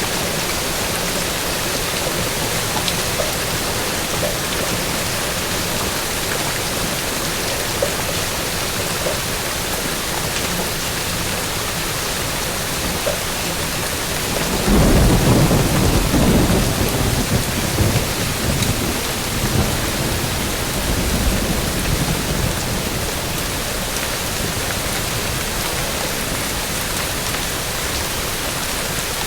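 Steady heavy rain, with a roll of thunder rumbling in about halfway through and dying away over several seconds.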